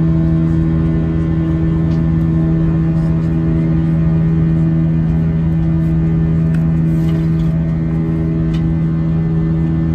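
Airbus A320 cabin noise: a steady drone of the engines and airflow with a strong low hum, unchanging throughout. A few faint rustles of the glossy inflight menu's pages being turned.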